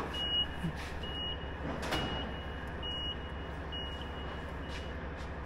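M1070 HET truck's cab warning alarm beeping about once a second with the power on and the engine not yet running, sounding the low-air-pressure warning. A steady low hum sits underneath.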